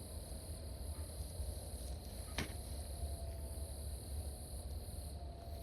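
Steady chirring of night insects, likely crickets, over a low rumble, with a single sharp click about two and a half seconds in.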